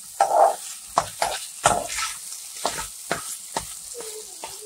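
Spatula stirring and scraping chopped zucchini and potato in a frying pan, in irregular strokes about twice a second, with the vegetables sizzling in oil.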